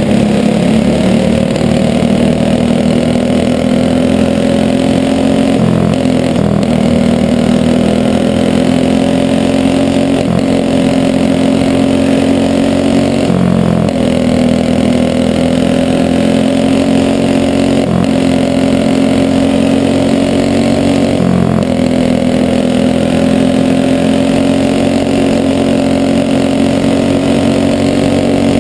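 Flathead four-stroke go-kart engine running hard, heard from on board, its note dipping briefly and climbing again about every four seconds as the kart lifts off for each turn of a short oval. Other karts' engines run close by.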